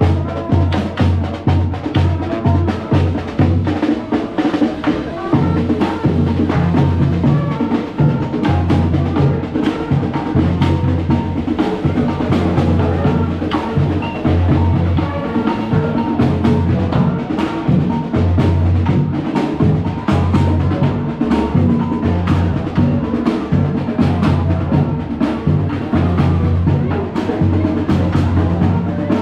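A marching band playing, with drums beating a quick, continuous rhythm under a melody.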